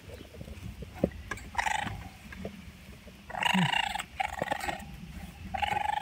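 Young raccoon making about four short, harsh churring calls during rough play with a hand, the longest a little past three seconds in.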